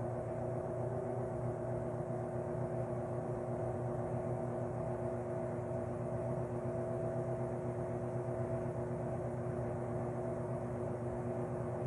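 Vintage Lakewood P-58 box fan motor running steadily with a 20-inch LAU propeller blade: a constant electric hum under an even rush of moving air.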